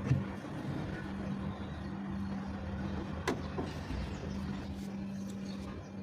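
Steady low machine hum, with a thump at the start and one sharp click about three seconds in.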